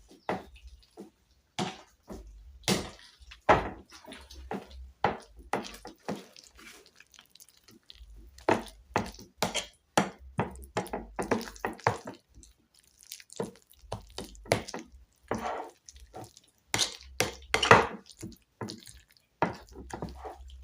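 Utensil clicking and knocking against a bowl while mixing a wet potato, spring onion and egg mixture by hand: irregular taps of varying loudness.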